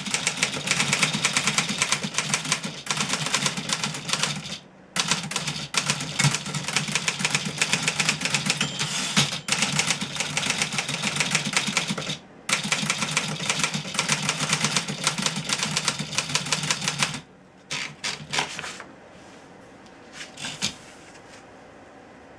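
1963 Remington Model 11 portable typewriter being typed on fast: a dense, rapid run of type bars striking the platen, with two short breaks. Near the end the typing thins to a few separate strokes and stops.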